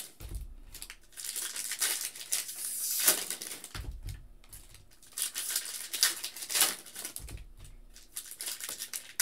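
Foil trading card pack wrappers (Panini Mosaic football packs) being torn open and crinkled by hand, in irregular crackly bursts with short pauses between, along with a few soft low bumps as the cards are handled.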